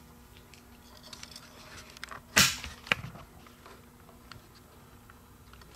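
Handling noise: one sharp knock about two and a half seconds in, a smaller click half a second later, and a few faint ticks over a low steady hum.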